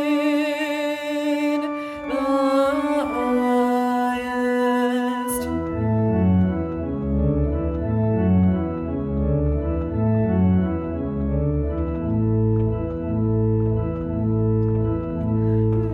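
A woman's held sung note with vibrato ends about five seconds in. An organ-toned keyboard accompaniment then plays an instrumental interlude of sustained chords that change every half second or so.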